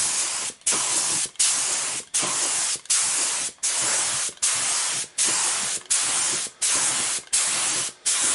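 Paint spray gun hissing in short, even bursts, about three every two seconds, cutting out briefly between each. The gun is laying quick passes of pure blend-in thinner over a bodywork repair.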